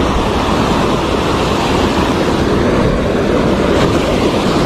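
River water rushing steadily over a weir and its rocks, a constant even wash of sound.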